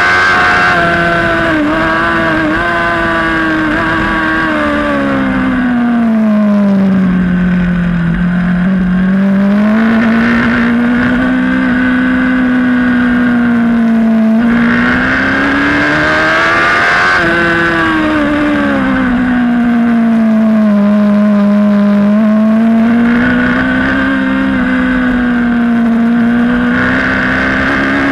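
Race motorcycle's engine under way at speed, its pitch swinging down and up several times as the rider brakes for corners and accelerates out, with wind rush over the microphone.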